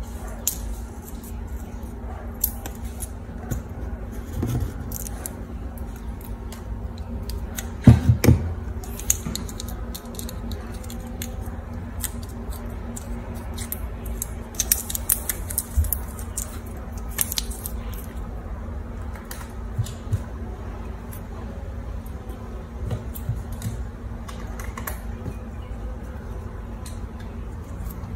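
Scissors snipping a plastic drinking straw: a scatter of short, sharp clicks and snips, with a louder cluster of knocks about eight seconds in.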